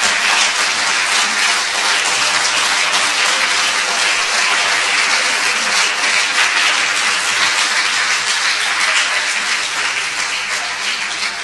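Audience applauding, a dense steady clapping that tails off slightly near the end.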